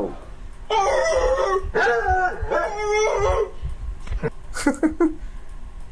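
A dog howling: two long howls with wavering pitch, followed by a few short calls near the end.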